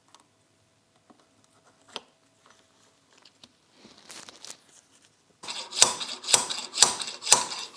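Faint scattered clicks of metal parts being handled. About five and a half seconds in, a run of loud, sharp metallic strikes with ringing begins, evenly about two a second, as of steel tools striking or tapping metal brake caliper parts.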